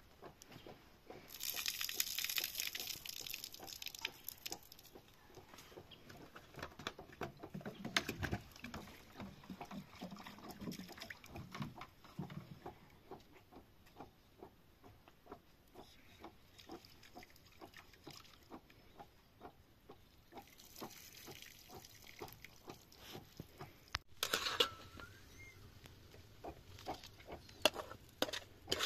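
Rice being washed by hand in a metal pan: water sloshing and splashing, grains rubbed against the metal, with light taps and clicks throughout. A stretch of pouring water comes near the start and another past the middle.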